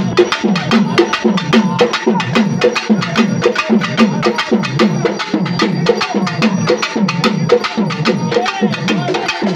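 Pambai drum ensemble playing a fast, continuous rhythm: rapid stick strikes over a repeating low drum stroke that falls in pitch, about three a second.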